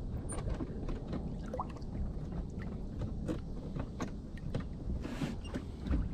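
Irregular light clicks and knocks aboard a small fishing boat over a steady low rumble, with a brief rustling burst about five seconds in.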